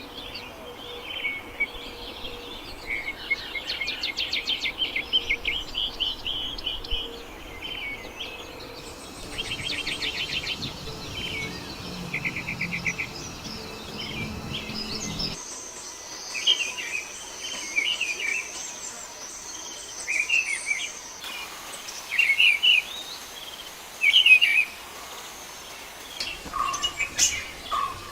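Songbirds singing and calling: fast trills in the first half, then short separate chirps over a thin, steady high whine. The background changes abruptly twice, as at joins between separate recordings.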